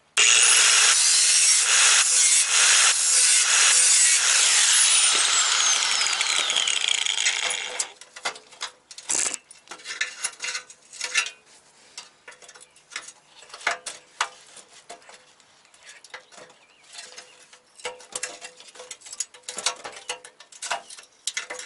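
Angle grinder with a thin cut-off wheel cutting into the steel core support bar of a VW Mk2. It spins up, cuts steadily for several seconds, and winds down with a falling whine, stopping about eight seconds in. After that come scattered clicks and knocks of metal parts and hand tools being handled.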